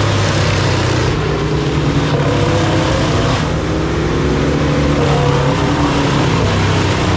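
Wood chipper's engine running steadily at high speed.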